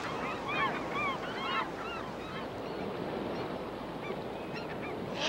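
Gulls calling: many short rising-and-falling cries, thick at first and thinning out after about two and a half seconds, over the steady rush of river water.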